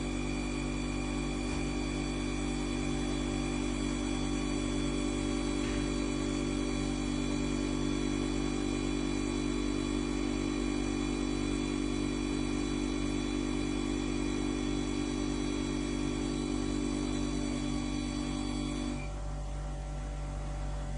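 Water-cooled brake disc grinding machine running steadily, a hum with several steady whining tones. The louder part drops away about two seconds before the end, leaving a lower hum.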